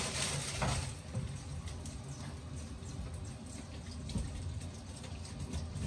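Kitchen tap running into a stainless steel sink while a vegetable is rubbed clean under the stream by hand, with a brief rustle of plastic packaging in the first second.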